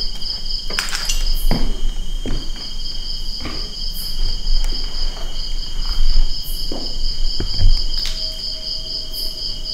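A steady insect chorus: a high, rapidly pulsing trill with a thinner steady whine beneath it. Scattered knocks and low thumps come and go, the loudest two-thirds of the way through and again near the end.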